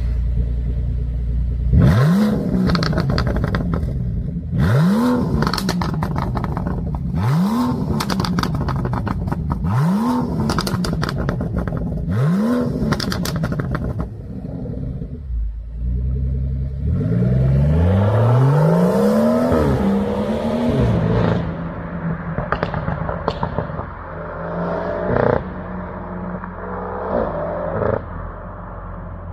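BMW M760Li's 6.6-litre twin-turbo V12 blipped five times from idle, each rev rising quickly and dropping back with a rattle of exhaust crackles and pops on the overrun. About sixteen seconds in the car pulls away, its engine note rising through two or three climbing sweeps, then fades with a few last pops.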